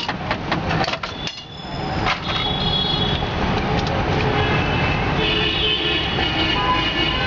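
Busy street traffic with vehicle horns tooting in short held notes, and a quick run of sharp clicks in the first second.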